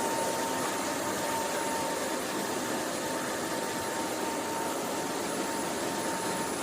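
Cordless wet-and-dry vacuum mop running with a steady whirring hiss and a faint, thin whine.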